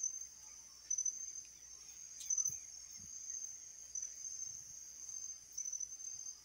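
Crickets trilling steadily in one high, unbroken tone, with a couple of faint clicks about two seconds in.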